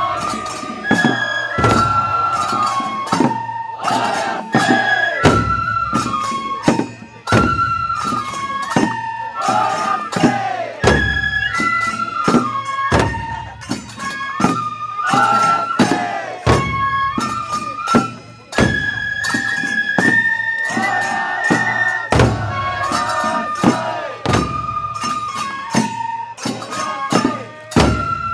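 Japanese festival hayashi: a bamboo transverse flute (fue) plays a melody in held notes that step up and down, over steady taiko drum beats.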